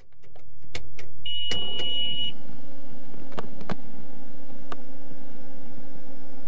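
Inside a RotorWay Talon A600 helicopter's cockpit: a few switch-like clicks, a high steady beep lasting about a second, then a steady electrical hum with occasional clicks.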